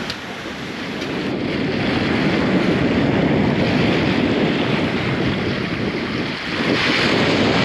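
Wind buffeting the microphone and water rushing past the hull of a sailing yacht under way through choppy sea, a steady noise that grows louder about two seconds in.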